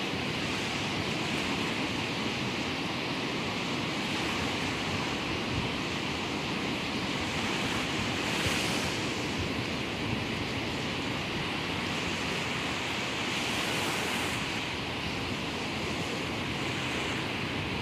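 Ocean surf breaking and washing on a beach, a steady rush with waves swelling about a third of the way in and again past the three-quarter mark, with wind buffeting the microphone.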